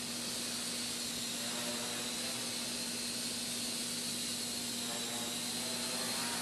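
Small quadcopter's motors and propellers whirring steadily in flight, with a high whine that drifts slightly lower in pitch and a steady low hum beneath.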